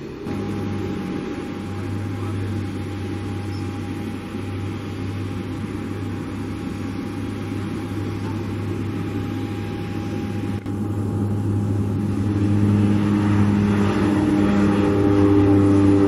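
Turboprop aircraft running with a steady low propeller drone that grows louder over the last few seconds as a FedEx Cessna Caravan's single turboprop engine pulls it through its takeoff and climb-out.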